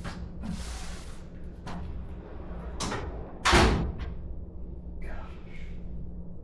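Drawers of a steel roller tool cabinet sliding on their runners and being pushed shut, with one heavy thud about three and a half seconds in.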